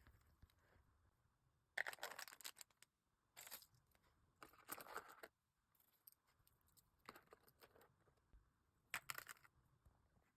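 Short bursts of plastic packaging crinkling and rustling, about five times, as small wrapped items are handled and packed. Between the bursts it is near silent.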